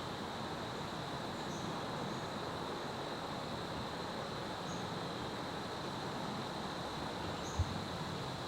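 Steady wind noise with a constant high insect drone, likely crickets, running under it, and one dull low thump near the end.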